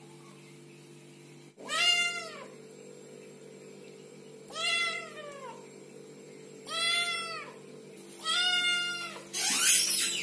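Kittens meowing: four separate plaintive meows, each rising then falling in pitch. Near the end comes a short, loud, hissy burst of noise.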